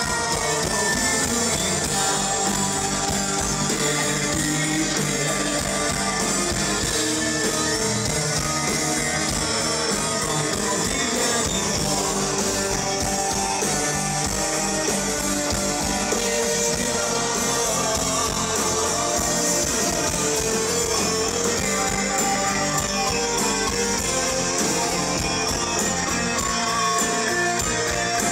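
Rock music with guitar and singing, loud and continuous.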